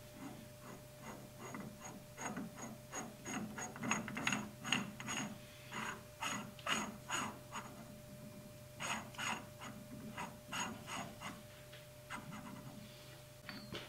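Metal lathe chuck and spindle turned slowly by hand: a faint run of light metallic clicks, about three a second, with a short pause about eight seconds in, over a faint steady hum.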